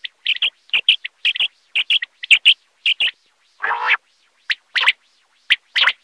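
Common quail calling: a quick series of short, sharp, high notes, mostly in pairs or threes, with one longer call that reaches lower about halfway through.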